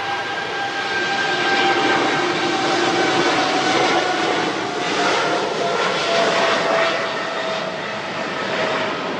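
Boeing 777-300's twin GE90 turbofan engines at takeoff thrust: a loud, steady rushing roar with faint whining tones that slowly fall in pitch.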